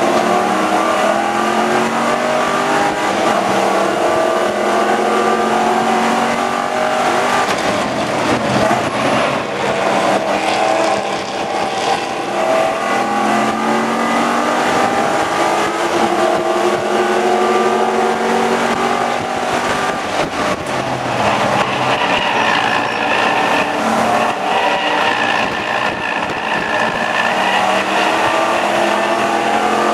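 Ford Mustang FR500S race car's 4.6-litre V8, heard from inside the cabin at racing speed. The engine pitch climbs for several seconds at a time under hard acceleration, then drops at each shift or lift, over and over.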